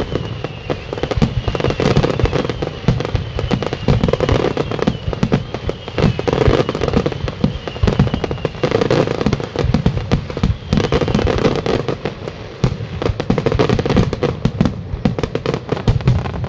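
Aerial fireworks display at full intensity: shells bursting in rapid, irregular succession, many loud bangs overlapping without a break.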